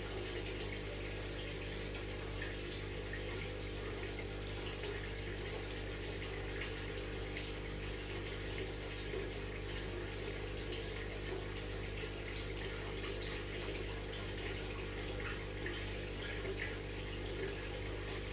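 Aquarium water trickling and bubbling steadily over a low, steady hum from the tank's pump.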